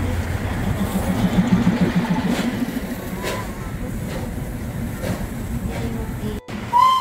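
Steady running noise of a car driving alongside the Darjeeling Himalayan Railway toy train, with a short gap about six seconds in. Just before the end, the train's whistle starts, a single held tone.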